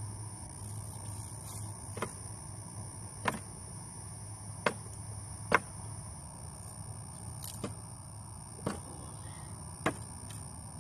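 Hammer knocking on the wooden boards and nails of a bench swing being taken apart: about seven sharp blows at an uneven pace, roughly a second apart, the fourth the loudest.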